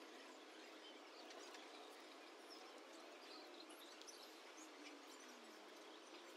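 Near silence: faint outdoor background noise with a few faint high chirps.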